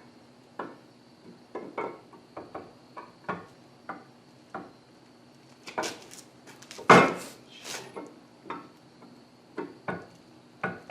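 Irregular light metal taps and clinks, roughly one every half second to one second, with one louder clatter about seven seconds in: hand work fitting a cam bearing into a bulldozer engine block.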